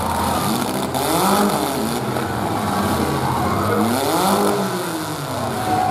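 Modified compact truck engines running in a demolition derby, with an engine revving hard twice, its pitch climbing and falling over about a second and a half each time, about half a second in and again near four seconds, over the steady drone of the other engines.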